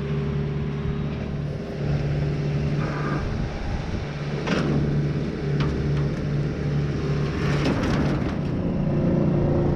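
Skid loader engine running, with a couple of sharp knocks, one about halfway through and another later on.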